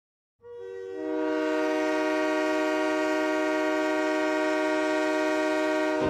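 Utah Grizzlies hockey goal horn, a chord horn of several notes, sounding one long steady blast. It starts about half a second in and its notes come in one after another over the next half second.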